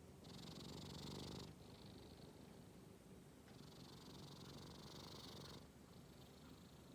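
Domestic cat snoring faintly in its sleep, slow breaths going in and out. A rumbling snore comes a moment in and lasts about a second, and a longer airy breath follows a couple of seconds later.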